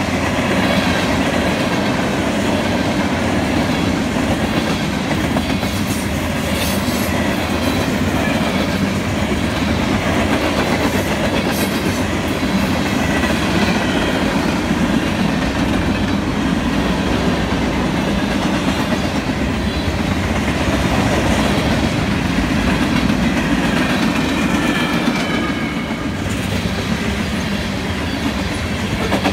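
Freight cars of a long mixed freight train, covered hoppers and tank cars, rolling past close by: a steady rumble of steel wheels on rail with clickety-clack over the rail joints and a few sharp clanks.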